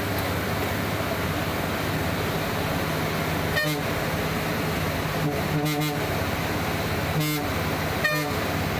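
Bus engine running steadily, heard from inside the cabin, with several short horn toots at a blind bend starting a little after three seconds in.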